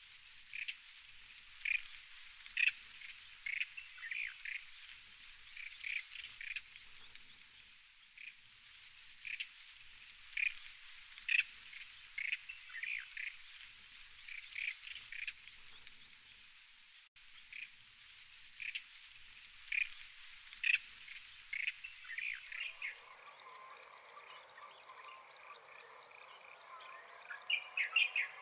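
A steady, high-pitched insect trill, with short, harsh animal calls repeating every second or two over it. From about 22 seconds in, a lower hum joins.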